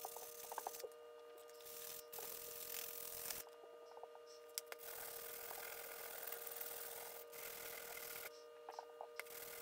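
Steel hammer head rubbed back and forth on a sheet of sandpaper laid flat on a bench: a dry, scratchy rasp in long stretches, broken by short pauses and a few light clicks, over a steady background hum.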